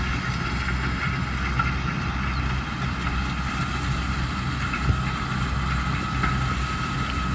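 Corn harvesting machine's engine running steadily: a low drone with a thin, steady whine above it.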